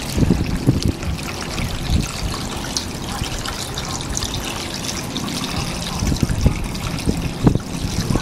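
Fresh water trickling and splashing out of a boat's scupper onto a manatee's snout as it drinks, with irregular low splashes and gurgles.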